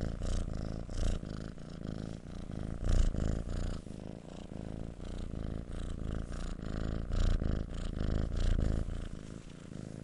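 Kitten purring: a low, rapidly pulsing rumble that swells and fades unevenly, loudest about three seconds in.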